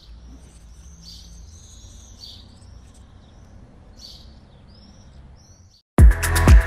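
Birds chirping and whistling in short rising and falling calls over a faint low steady rumble. After a brief silence, about six seconds in, a deep house track cuts in much louder with a kick drum beat.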